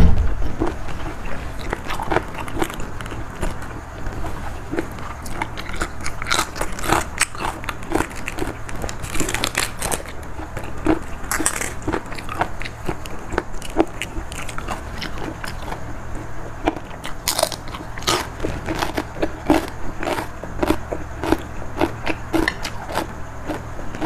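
A person chewing and crunching mouthfuls of Thai spicy seafood salad with raw vegetables: an irregular, steady run of wet bites and crunches.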